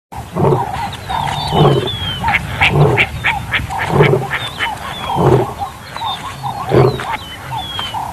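Wild animal calls: a deep call repeated about every second or so, six times, with higher squealing glides over it.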